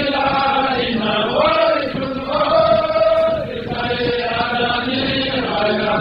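Slow Islamic devotional chanting, with long held notes that bend up and down in pitch.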